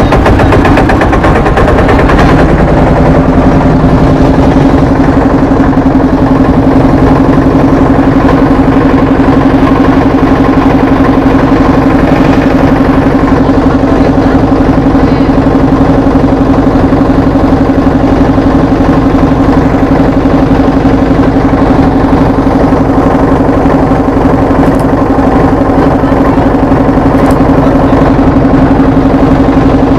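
Motorboat engine running steadily at an even speed: a constant, unchanging note with fast, regular firing pulses.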